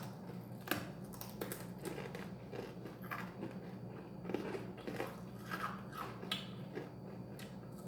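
People chewing thick-cut homemade potato chips, crisp from the microwave, with irregular crunches all through.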